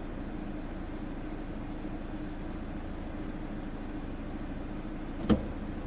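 Peugeot car engine idling steadily in neutral on petrol, heard from inside the cabin as a low, even hum. A single sharp click comes a little over five seconds in.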